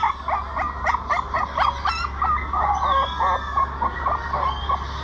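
Several puppies whining and yelping in a rapid series of short, high calls, about three a second, over a steady low hum.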